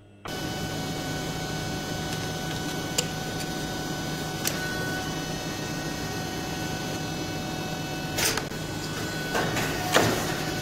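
Mandrel tube bending machine running with a steady mechanical hum as it bends a tube. There are a couple of sharp clicks, and near the end a few short bursts of hiss.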